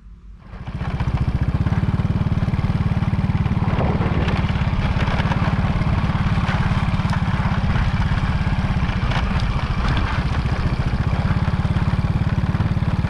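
Motorcycle engine running steadily while being ridden. It fills in loud about a second in, with a fast, even engine pulse.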